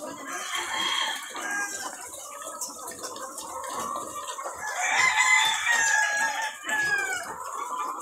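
A flock of caged laying hens clucking and cackling, many calls overlapping, loudest about five seconds in.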